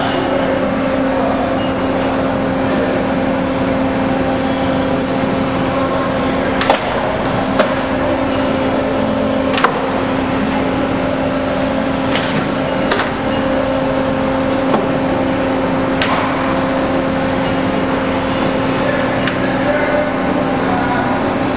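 Pines AD 35 hydraulic CNC tube bender running through a bend cycle: a steady hum from its hydraulic pump and drive motor, with several sharp clicks and knocks at irregular moments as the machine cycles.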